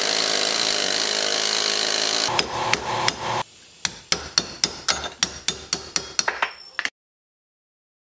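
A rotary grinder grinding down the mushroomed head of a seized hinge pin in a 1971 Chevy C10 door hinge, then a hammer striking a punch on the pin in a quick run of metallic blows, about four a second, to drive the stuck pin out. The sound cuts off suddenly near the end.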